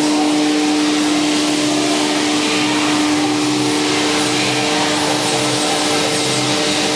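Kitamura Mycenter HX400iA horizontal machining center running: a steady hiss with a steady hum and a faint, even low pulsing underneath.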